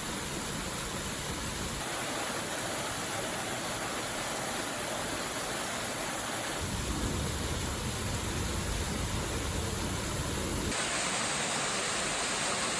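Darwin Falls, a small waterfall, making a steady rush of splashing water. The character of the rush changes abruptly three times: about 2 seconds in, about 6.5 seconds in and near the end.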